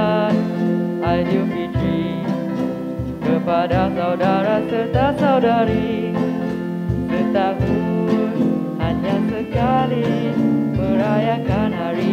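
A Malay Hari Raya song sung into microphones by a boy and a girl, backed by acoustic guitar, keyboard and a steady cajón beat.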